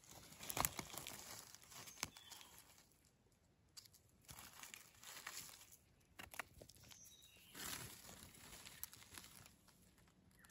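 Dry leaf litter rustling and crackling in irregular bursts, with soft scrapes and clicks, as gloved hands dig around and cut a mushroom from the forest floor with a small knife.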